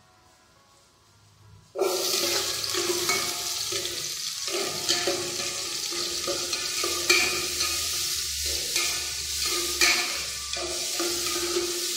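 Garlic and ginger sizzling in hot oil in an aluminium pot on a gas stove as they are stirred, a steady hiss with scattered crackles that starts suddenly about two seconds in.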